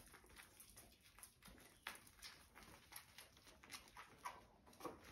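Faint sounds of puppies at play: small paws pattering and scuffling on the floor and pad, with a few short high squeaks from the puppies, two of them in the second half.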